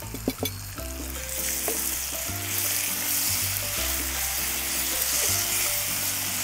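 Eggplant frying and sizzling in hot oil in a pan, with a couple of utensil taps near the start. The sizzle swells a little over a second in, as mango chutney goes into the pan.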